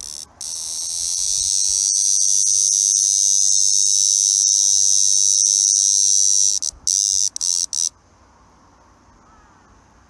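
Ko-ezo-zemi cicada (Lyristes bihamatus) calling: a loud, high buzz that swells over the first second and holds steady for about six seconds. It then breaks into a few short pulses and stops about eight seconds in.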